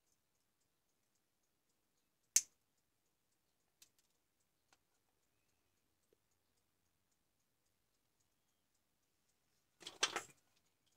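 A single sharp snip about two seconds in, most likely side cutters clipping a component lead on a charger's circuit board, followed by a few faint clicks. A short clatter of knocks and rattles comes near the end.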